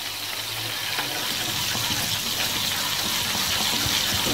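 A whisk stirring yogurt in a pot, a steady swishing of liquid that grows a little louder about a second in. The yogurt is close to the boil, with garlic just added.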